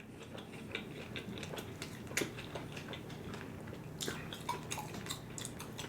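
A person chewing food close to the microphone: scattered faint clicks and mouth sounds, over a low steady room hum.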